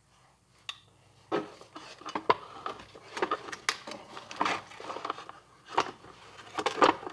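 Small metal parts of a record player's motor assembly being handled and fitted back together: irregular clinks, clicks and knocks, starting about a second in.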